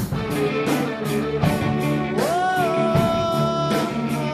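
Rock music with a steady drum beat and bass; about two seconds in, a singer slides up into one long held note.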